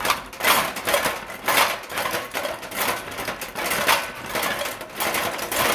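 Household objects rattling and clattering in a room shaken by an earthquake: a dense, continuous clatter with louder surges every second or so.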